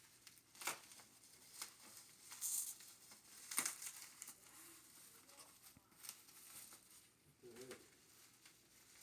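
Sealed box packaging being cut and torn open with a knife: wrapping crinkling and tearing in a few short, scattered rustles.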